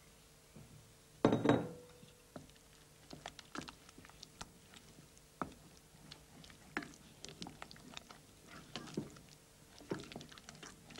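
Wooden spoon stirring egg yolks into a thick sauce in a saucepan: soft, irregular wet slaps and light taps of the spoon against the pan, with one louder thump about a second and a half in.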